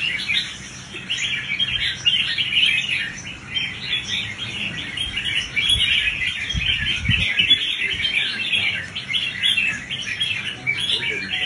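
Caged red-whiskered bulbuls singing competition song: quick, overlapping chirping phrases that run on without a break.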